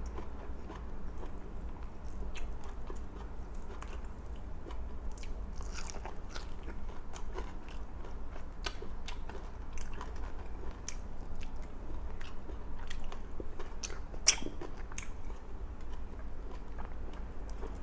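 A person chewing and crunching food in the mouth, with many small wet clicks and one sharper click about fourteen seconds in.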